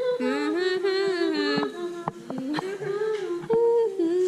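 A woman humming a tune without words, in held notes that slide from one pitch to the next, with a few light taps in the middle.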